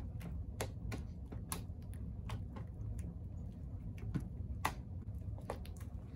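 Fluffy shaving-cream slime being kneaded and stretched by hand, giving irregular sharp clicks and pops, about two a second, over a low steady room hum.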